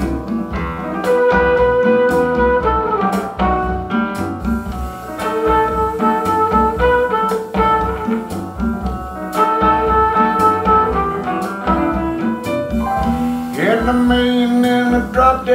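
Music: a song's instrumental intro, guitar and other sustained notes over a steady drum beat and bass.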